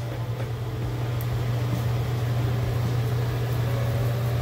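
Chicken and vegetables sizzling in olive oil in a frying pan over a steady low hum. Near the end a faint motor whine starts as a battery-powered salt or pepper grinder dispenses seasoning.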